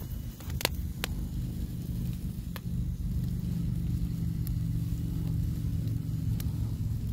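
A steady low mechanical hum, a little stronger from about two and a half seconds in, with a few sharp pops from the wood fire under the spit-roasting chicken.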